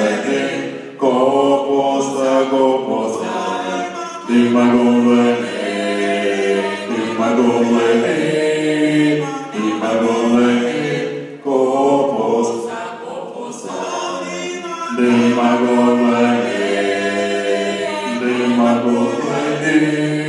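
Male vocal quintet singing a cappella in close harmony into handheld microphones, holding chords in phrases a few seconds long with brief breaks between them.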